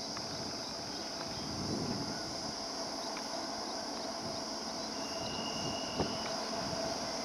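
Steady high-pitched insect drone, with the faint running of an approaching WAG-9H electric locomotive and its train underneath. A single sharp click comes about six seconds in.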